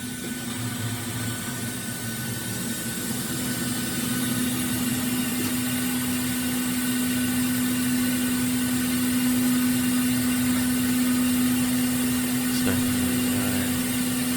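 CNC milling machine's cutter cutting 6061 aluminium: a steady humming tone over a hiss, slowly getting louder over the first few seconds.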